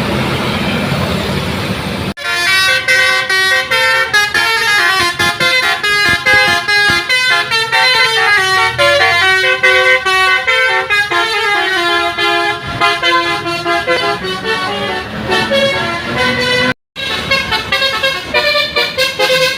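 A bus's telolet basuri multi-tone musical horn plays a quick melody of short stepped notes. It starts about two seconds in, after a stretch of noisy background. It breaks off for a moment near the end, then plays on.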